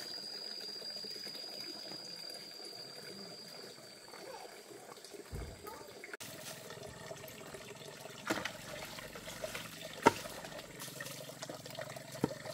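Water running and trickling, with a steady high whine for the first half; after a sudden change about six seconds in, a few sharp knocks.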